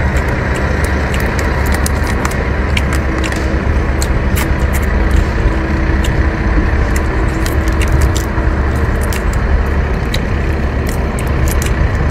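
Scattered small crackles and clicks of cooked shellfish shell being cracked and peeled by hand, and of chewing, over a loud, steady low rumble.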